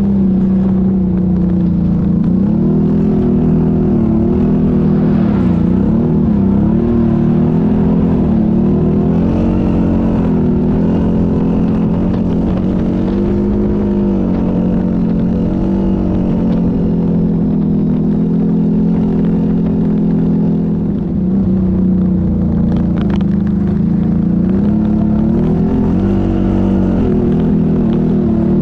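ATV engine running under way, its pitch rising and falling as the throttle is worked. It holds steadier for a few seconds past the middle and eases off briefly just before the end.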